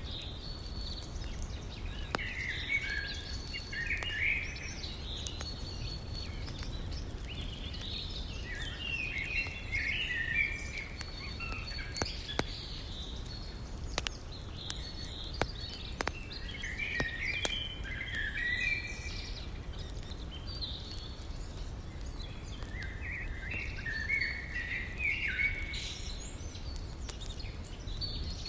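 Wood fire crackling with scattered sharp pops over a steady low rush of river water. A songbird sings short chirping phrases four times, several seconds apart.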